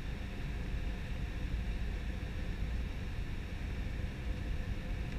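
Cabin noise inside an Airbus A320 in flight: a steady rush of airflow and jet engine noise over a deep rumble, with a faint steady hum of tones above it.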